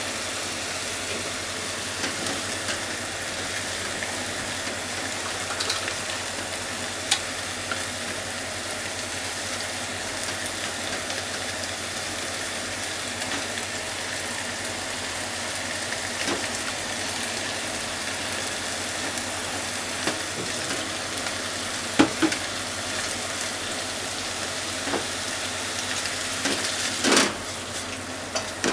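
Bean sprouts and minced chicken sizzling steadily in a hot frying pan as they are stir-fried with chopsticks. A few sharp clicks of the chopsticks against the pan, the loudest ones near the end.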